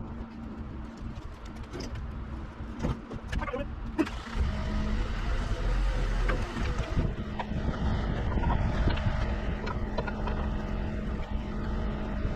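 Truck engine running steadily with a low hum. It gets louder about four seconds in, with a few knocks along the way.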